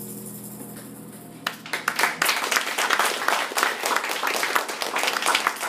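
The last chord of a plucked-string ensemble of guitars and bass ringing out and fading away, then audience applause breaking out about a second and a half in and continuing.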